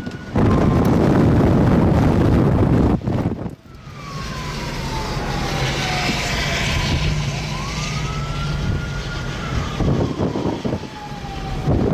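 Strong wind buffeting the microphone for the first three seconds or so, then cut off. After that a siren wails, its pitch sliding slowly down, rising again about four seconds later, holding briefly and sliding down again, over a low steady rumble.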